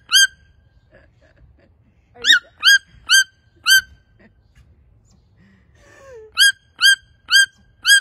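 Red-billed toucan calling: a run of short, high, sharp yelps, each rising at the end. There is one yelp, then four in quick succession, then four more. This is the yelping call that marks the red-billed toucan as one of the 'yelper' toucans.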